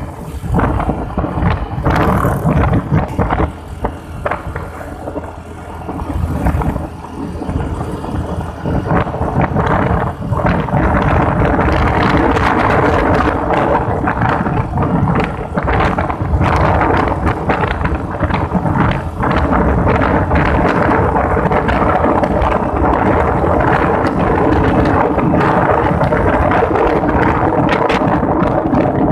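Wind buffeting the microphone while riding a motorbike, with the bike's engine running steadily underneath. It eases off briefly a few seconds in, then grows louder and steadier from about ten seconds on.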